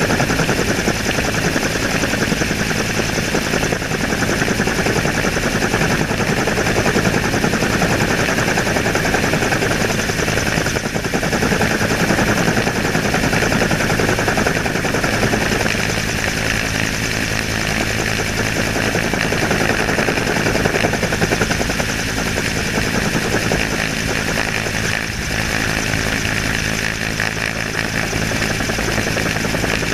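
Helicopter in flight, its rotor and engine running steadily, heard close up from a camera mounted on the outside of the aircraft.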